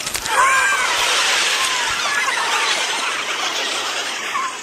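Crowd screaming and cheering, pitched up high and fast by a chipmunk effect, starting abruptly with a yell and going on as a dense wash of shrieks that eases off near the end.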